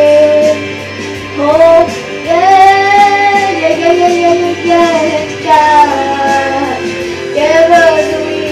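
A boy singing a pop ballad into a handheld microphone over instrumental accompaniment, in phrases of long held notes that slide up and down.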